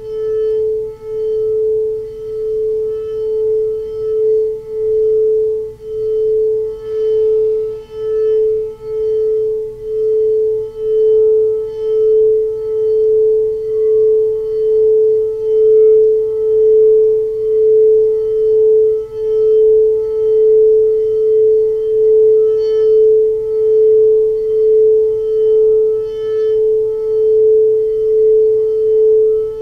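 Crystal singing bowl played by circling a mallet round its rim: one loud, steady tone with a regular pulsing waver a little faster than once a second, and faint higher overtones.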